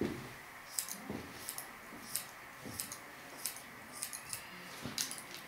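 Barber's scissors snipping hair held out on a comb, a series of crisp snips about one every half second to second.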